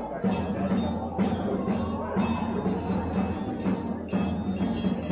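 Music with a steady beat of strokes, about two to three a second, with high ringing tones held above them.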